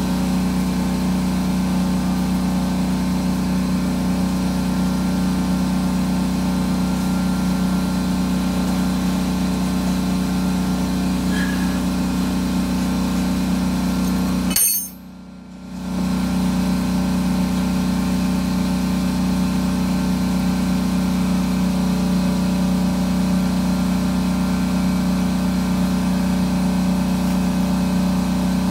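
Electric air compressor motor running with a steady, even hum. It breaks off for about a second halfway through, then runs on.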